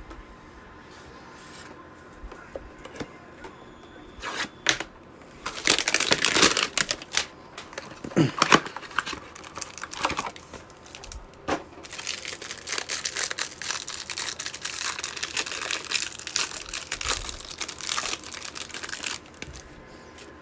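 Card-break packaging being torn and crinkled by hand: a Mosaic basketball hanger box and its wrappers ripped open and rustled, in bursts of crackling from about four seconds in until just before the end.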